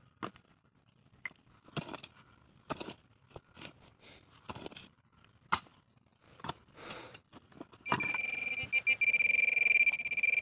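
A mattock strikes and scrapes into stony soil in irregular strokes. About eight seconds in, a metal-detecting pinpointer held in the hole starts a steady high-pitched tone, its signal that metal is close.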